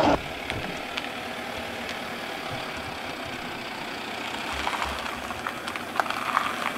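A van's engine running steadily at low revs as the van rolls slowly forward, with a few faint clicks about five to six seconds in.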